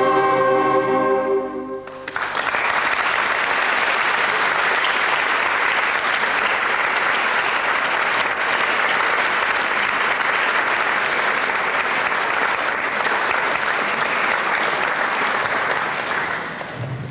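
An orchestra with two solo transverse flutes holds its final chord, which ends about a second and a half in. An audience then applauds steadily, tailing off near the end.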